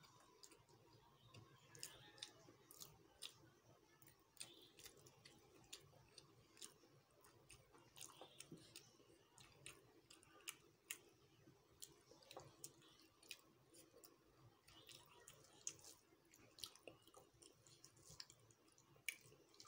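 Faint eating sounds: scattered small wet clicks and smacks as rice is mixed by hand on a steel plate and chewed.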